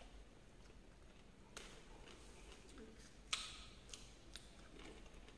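Faint mouth sounds of a man eating by hand: a few sharp smacks and clicks, the loudest about three seconds in, over near silence.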